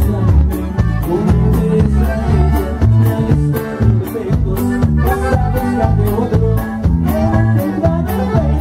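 Live Latin music from a conjunto band, with a steady beat of percussion strokes and a strong bass line.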